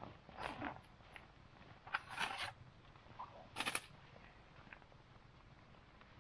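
Large Manaraga Viking 120 nylon backpack being handled and opened: short rustles of fabric, straps and zipper in a few quick bursts over the first four seconds.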